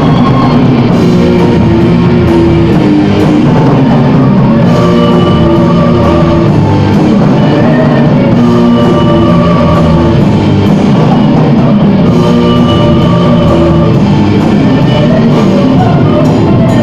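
Gothic metal band playing loud and steady, with electric guitars and a drum kit.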